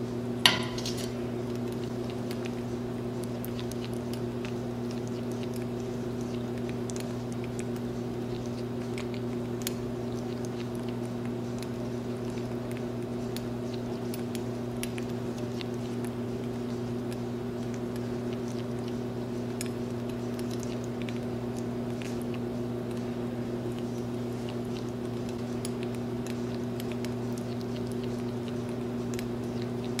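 A steady low hum throughout, over faint scattered clicks and scrapes of an African grey parrot's beak working oatmeal off a metal spoon. One sharp, ringing clink of the spoon about half a second in is the loudest sound.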